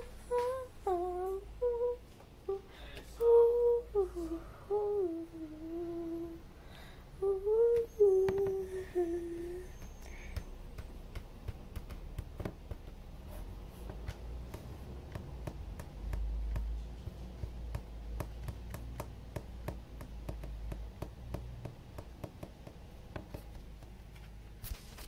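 A girl humming a wordless tune for about ten seconds, the pitch sliding up and down; after she stops, a run of faint quick clicks continues to the end.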